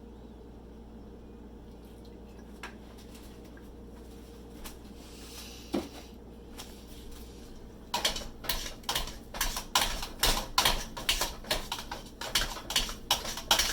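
A kitchen utensil knocking and clattering rapidly and irregularly against a pot as mashed potatoes are mixed, starting about eight seconds in. Before that there is only a steady low hum and a couple of faint clicks.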